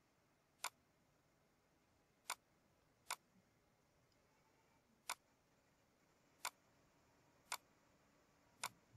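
Seven short, sharp computer mouse button clicks at irregular intervals, about a second or two apart, over near silence.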